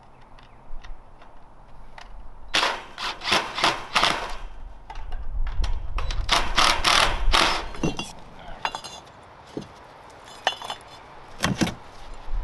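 Hand tool clacking and rattling against wire mesh as it is fastened to a chicken run's wooden frame, in several bursts of sharp strikes with short pauses and a rapid ticking run near the end.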